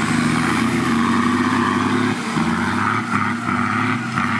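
4x4 off-road vehicle's engine running at a steady pitch, with a brief dip in level about two seconds in.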